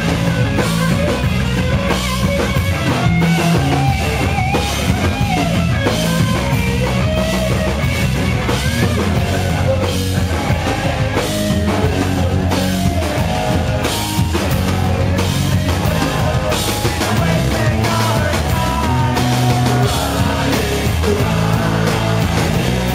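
Rock band playing live: distorted electric guitar and drum kit with a singer's voice over them.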